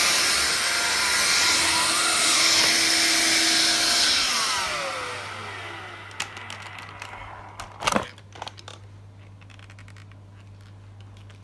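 Vax Air Cordless Lift cordless upright vacuum running, then switched off about four seconds in, its motor whine falling as it spins down. Afterwards there are a few light clicks and a sharp knock near eight seconds in, over a faint steady low hum.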